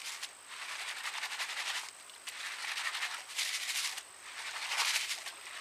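A plastic colander of sand and gravel being shaken and swirled in shallow water. The water sloshes and the grit rattles in three bouts as the sand is rinsed out to leave the heavy gold behind.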